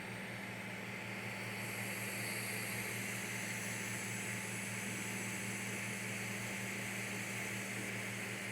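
Creality CR-M4 3D printer running: a steady whir of fans with a low hum, and faint high whining tones that come in about a second and a half in.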